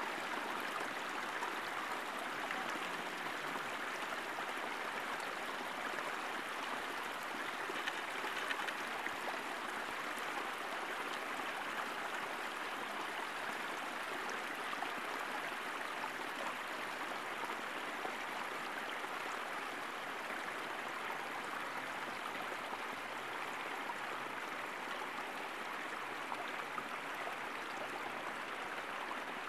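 Steady, even hiss of a cog-wheel railcar's running noise as it moves along the track, with no pitch, beat or sudden sounds.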